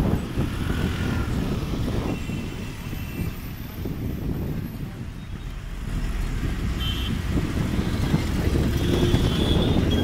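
City bus running along a street, with engine rumble and road noise heard from on board. The rumble eases in the middle and builds again later.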